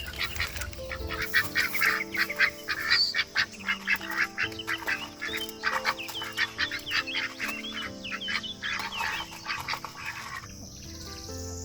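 A flock of domestic waterfowl calling with rapid, overlapping honks, which thin out near the end, over soft background music of held notes.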